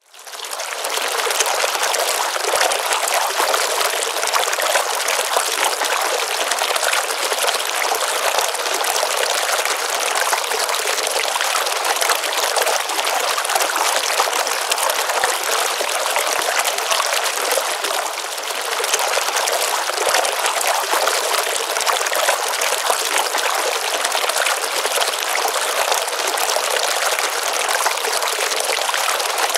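Small stream of water running and trickling steadily into a pond, with a constant splashing rush that fades in over the first second.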